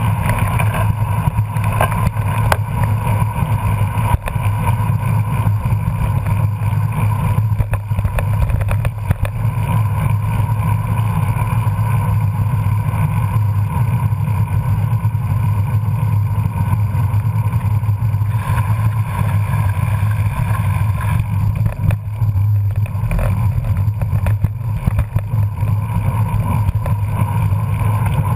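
Steady rush of riding wind on a bike-mounted camera's microphone, mixed with the low rumble of road-bike tyres on pavement, at about 15 to 20 mph.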